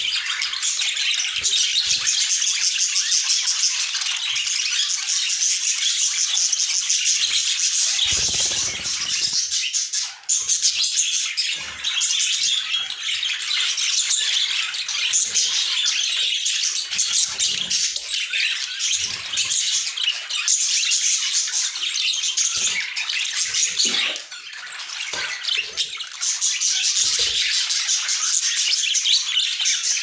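A flock of budgerigars chattering and warbling continuously, a dense high twittering that dips briefly a couple of times.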